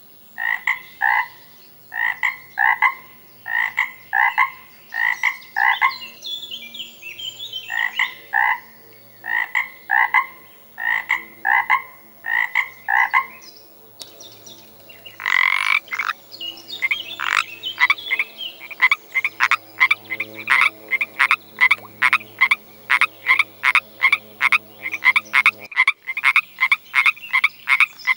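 Frogs croaking. Repeated short croaks, often in pairs, fill the first half. Then a different frog takes over with a fast, even run of croaks at about three a second.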